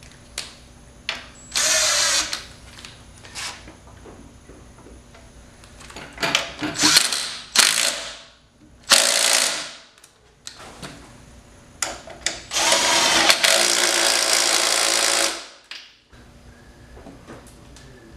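Ratchet wrench tightening the engine mount bolts of a Honda D15B7 engine swap, clicking in four runs of one to three seconds with short clicks in between.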